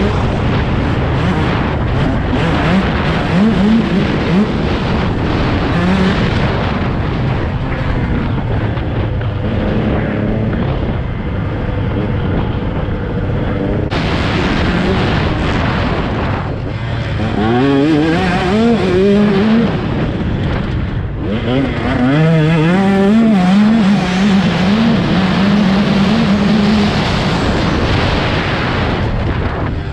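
Dirt bike engine running under a rider with heavy wind rush on the microphone. After a cut partway through, the engine revs up in several rising sweeps as it climbs through the gears, then holds a steady note.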